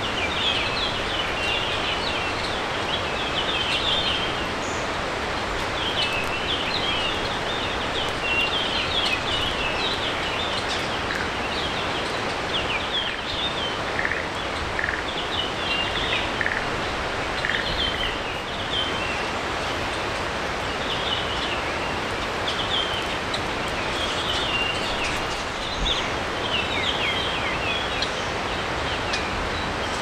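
A flock of Japanese grosbeaks calling: many short, overlapping chirps throughout, over a steady background hiss.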